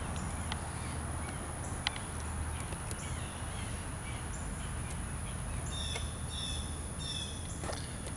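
A bird calls near the end in about three quick groups of high chirps, over a steady low outdoor rumble. Earlier there are a few light clicks of a small nut and washer being handled at the battery terminal.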